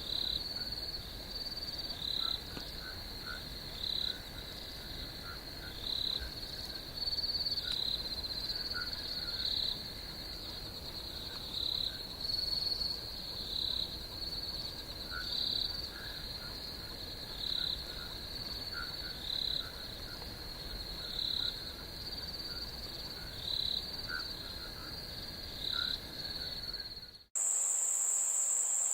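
Crickets trilling steadily at a high pitch, with louder pulses about every two seconds and faint chirps lower down. Near the end it cuts off abruptly and a different, higher steady insect trill takes over.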